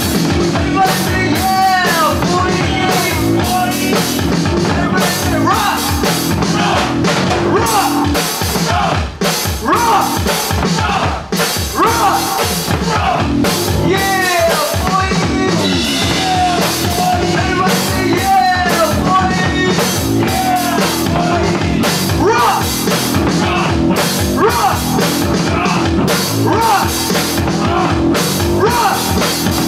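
Live rock band playing loud, with a drum-kit beat, and a vocalist shouting into a microphone over the band.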